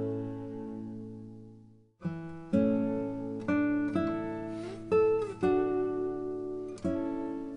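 Background guitar music with plucked and strummed notes. A phrase dies away to silence about two seconds in, then fresh notes start again, some of them sliding in pitch.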